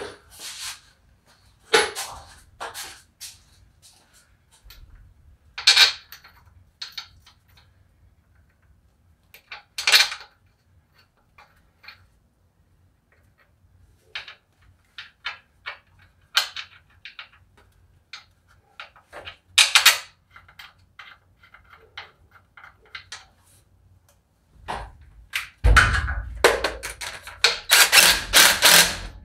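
Scattered clinks and knocks of metal parts and tools as a transmission is lined up against the bell housing and bolts are started. Near the end a cordless drill runs for a few seconds, driving a bolt in.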